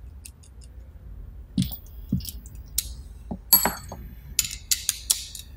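Small metal parts and hand tools clinking and clicking during hand reassembly of a pneumatic attachment's end plate and lock nut. Scattered sharp clicks, closer together in the second half.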